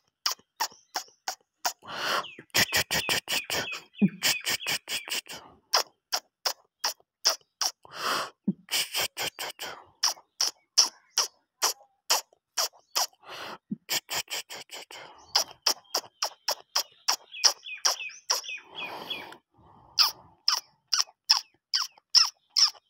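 Puppies squeaking and yipping: short, high-pitched calls repeated a few times a second in long runs with brief pauses.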